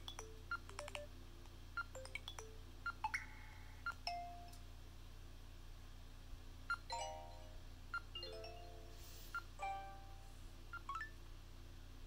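TCL LX phone's built-in notification tones played as previews one after another: a series of short electronic chimes, blips and beeps, each a different tone, arriving every second or so.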